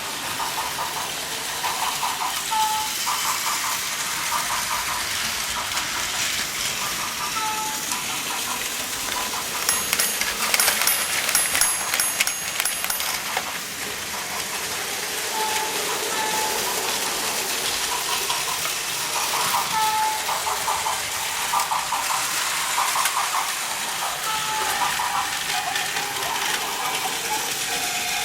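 Plarail toy trains running on plastic track: a steady whir of small battery motors with wheel and track clatter. Short electronic tones sound on and off throughout. About ten seconds in comes a few seconds of high-pitched ringing clicks.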